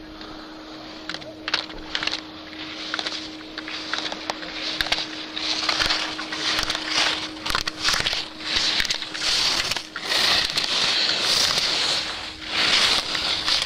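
Slalom skis carving and scraping across hard snow, growing louder as the skier nears, with a swell of hiss at each turn. Sharp clicks and knocks run through it.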